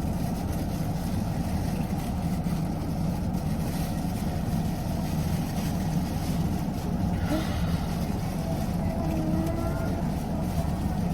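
Steady low rumble of road and engine noise, as inside a moving car, with faint voices in the background around the middle.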